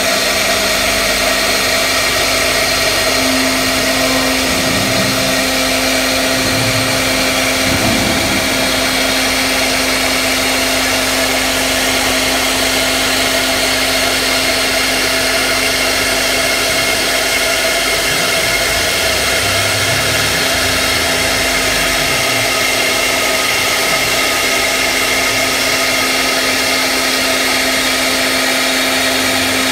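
CNC router spindle milling an aluminium plate: a loud, steady machine whine with a constant low hum and a continuous cutting noise, unchanging throughout.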